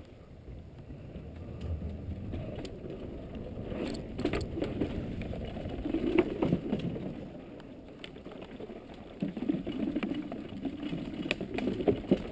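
Downhill mountain bike rolling fast over dirt and wooden ladder bridges: rumbling tyre noise and bike rattle that swells and fades with the terrain, with sharp knocks from wheels striking planks, roots and rocks.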